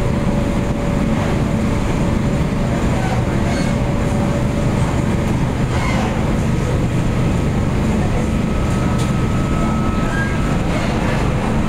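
Cabin noise inside an MTR Tung Chung Line K-Train car running along the line: a steady, loud rumble of the train on the track. A faint steady tone fades out about halfway through, and a higher one comes in later.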